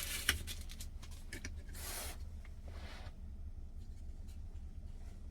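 Small handling sounds of packaging from the kit being unpacked: a few light clicks and a short rustle about two seconds in, over a steady low hum.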